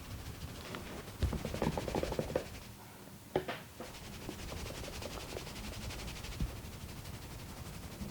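Hands working on a person's head and neck during a massage: a quick run of short rubbing and patting sounds a little over a second in, then one sharp click about three and a half seconds in, over a steady low hum.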